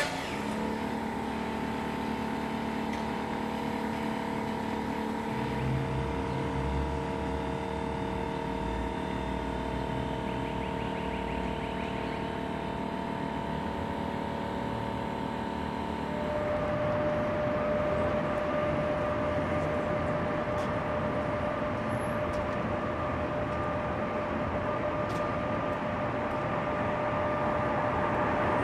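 Steady machinery hum with several held tones from parked electric trolley buses; about 16 seconds in it switches abruptly to a different steady hum with one clear, higher tone.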